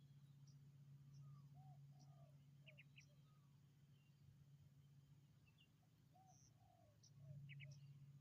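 Spotted dove cooing faintly in two short phrases of about three coos each, one about a second and a half in and one around six seconds in. Thin short chirps from small birds and a steady low hum run underneath.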